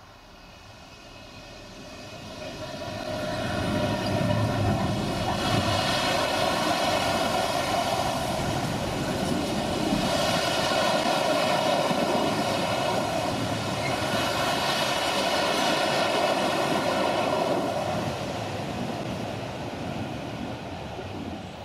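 Freightliner Class 66 diesel locomotive, with its two-stroke EMD V12 engine, passing at the head of an intermodal freight train, followed by a long string of container flat wagons rolling over the rails. The sound builds over the first few seconds, holds steady while the wagons go by, and fades over the last few seconds.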